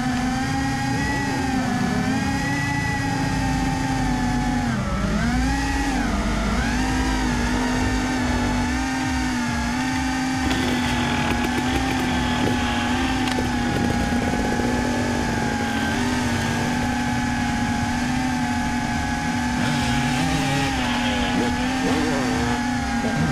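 Drone propellers humming steadily as the drone hovers, one strong even pitch that dips and recovers about five seconds in as the drone manoeuvres.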